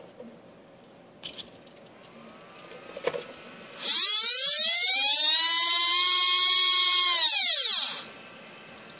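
Tamiya Super Stock RZ brushed RC motor spun up quickly, held at high speed for about four seconds with a high whine and hiss, then wound down and stopped. A couple of light clicks come before it.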